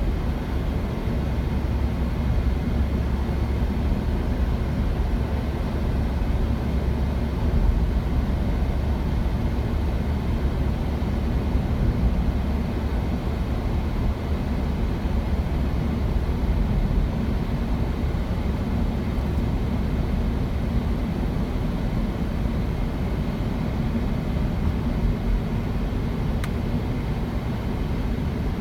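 Steady low rumble of a moving vehicle, without pauses or changes.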